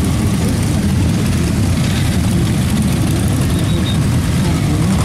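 A large pack of motorcycles idling together, a loud, steady, dense low engine rumble with no single bike standing out.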